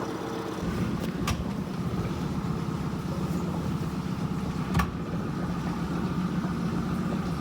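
A small boat's outboard motor running, getting louder about half a second in as it is throttled up to turn the boat around in the narrow gorge. A few sharp knocks are heard, about a second in and again near five seconds.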